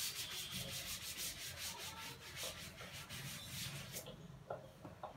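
A cloth duster rubbing chalk off a blackboard in quick back-and-forth strokes, stopping about four seconds in.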